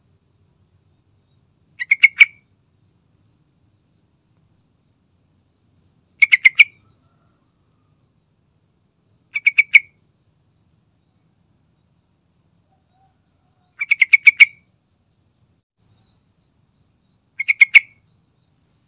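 Yellow-vented bulbul calling five times, a few seconds apart. Each call is a quick run of three to five short notes that get louder toward the end.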